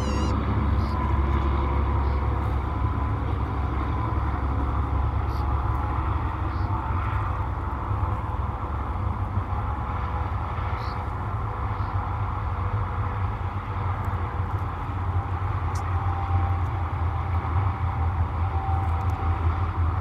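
Steady low rumble of background noise at the nest site, with a faint steady hum above it and a few faint ticks.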